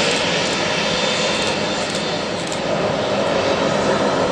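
Jet aircraft engines running, a steady loud rushing noise.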